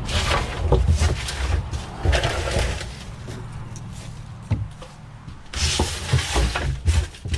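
Irregular knocks, scrapes and rustling as debris is dug out of a boat's compartment by hand, with a few louder scraping bursts near the start, about two seconds in, and again past five seconds.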